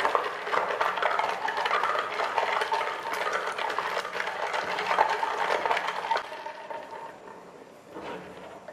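Ice cubes clinking and rattling inside a plastic cup as a straw stirs an iced drink through the lid: many quick clicks that stop about six seconds in.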